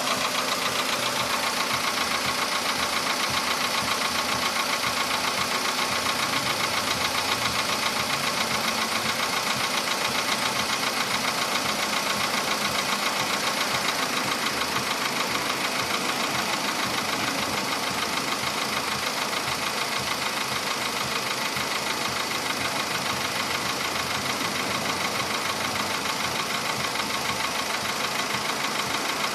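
Volkswagen Polo Sedan engine running steadily, likely at idle, with a fast, even knock from within the engine: a fault knock that started faintly and has become much louder.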